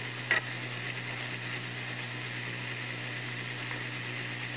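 Steady hiss with a low electrical hum, the background noise of an old recording, with one brief click about a third of a second in.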